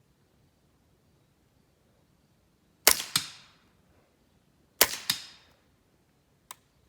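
Two suppressed shots from a Smith & Wesson M&P 15-22 with a Gemtech GM-22 suppressor firing subsonic .22 rounds, about two seconds apart. Each shot is followed about a third of a second later by a second sharp crack. A single light click comes near the end as the rifle jams.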